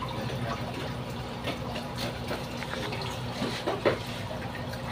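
Aquarium water trickling and splashing steadily over a low hum, with a few faint clicks and a brief louder sound a little before four seconds in.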